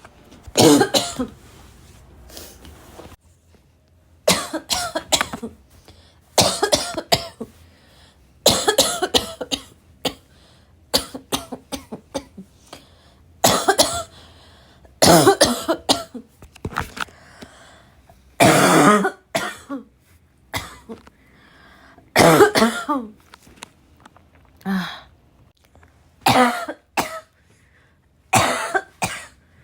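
A woman coughing hard and raspy, in repeated fits of several quick coughs about every two seconds.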